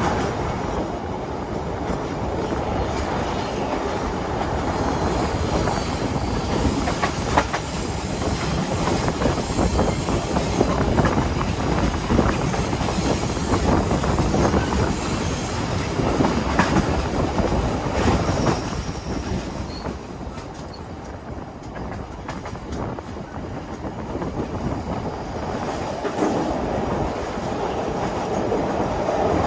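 Passenger coach of a moving train heard from its toilet compartment: steady rumble of wheels on the rails with clattering knocks over rail joints. It eases somewhat quieter about two-thirds of the way through, then builds again.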